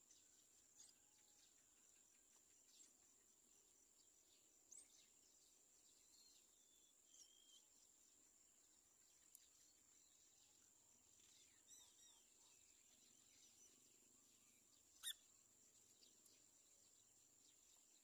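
Faint steady high-pitched insect drone with short, scattered bird chirps every couple of seconds, the loudest about fifteen seconds in.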